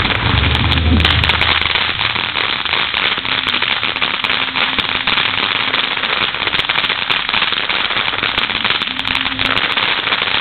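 Ground fountain firework burning, a steady hiss thick with rapid crackling.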